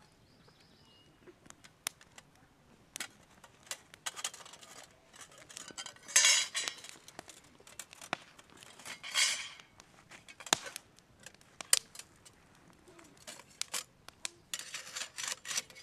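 Metal clinks and clicks from a folding stainless-steel Firebox twig stove being unfolded and its metal rods fitted into place, with a couple of longer metal scrapes about six and nine seconds in.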